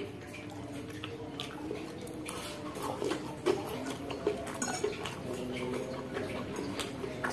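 A metal fork clinking and scraping against a ceramic bowl as instant fried noodles are twirled up, with chewing in between; several light clinks come in the middle of the stretch.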